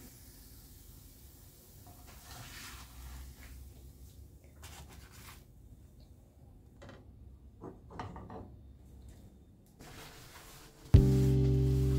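Faint kitchen handling sounds, a few light knocks and clatters. About a second before the end, loud background music starts abruptly with steady held notes.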